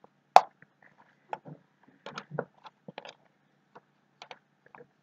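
Fingers poking hardened glitter slime inside a clear plastic tub, with the tub clicking and knocking as it is handled; a sharp click about half a second in is the loudest, followed by a string of smaller taps.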